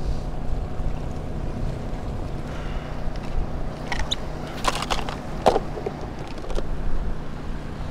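Steady engine hum of a running Honda portable generator, with the plastic clicks and rattles of a tackle box being packed and snapped shut about four to five seconds in.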